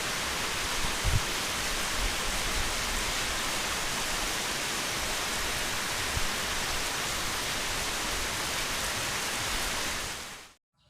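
Steady rain falling, an even hiss with a few faint low knocks, which cuts off suddenly near the end.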